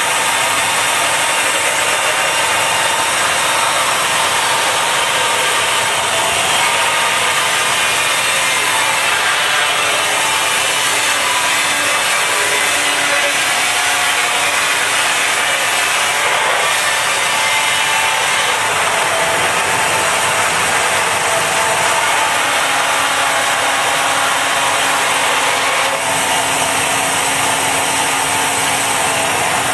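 Northfield 27-inch band saw with a 1¼-inch hook-tooth blade running steadily while it resaws a pine board fed against its roller resaw attachment.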